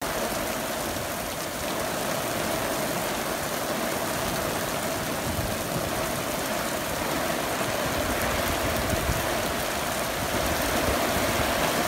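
Thunderstorm downpour: heavy rain pouring onto paving and puddles, a dense, steady hiss with no let-up.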